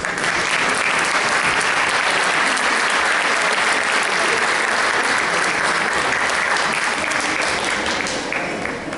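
Audience applauding in a theatre hall: the clapping starts suddenly, holds steady, then dies down near the end.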